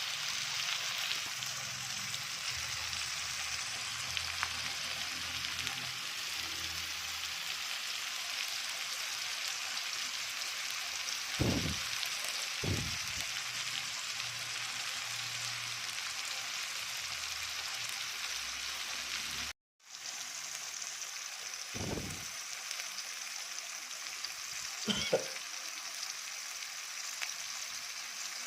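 Food frying in hot oil in a pan: a steady sizzling hiss, with a few short knocks, and a brief dropout about two-thirds of the way through.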